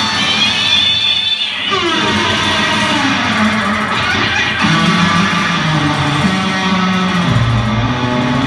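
Rock band playing live, with electric guitars and drums, heard from the audience. High notes slide down in pitch during the first two seconds.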